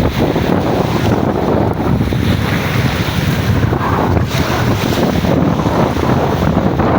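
Strong wind buffeting the microphone, loud and steady, with the rush of sea waves beneath it.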